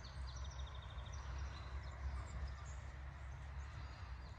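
Small birds chirping, with scattered short high calls and a quick run of notes near the start, over a faint steady low rumble.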